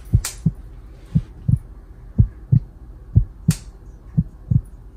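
Heartbeat sound effect: a steady lub-dub, one double thump about every second, added for dramatic tension.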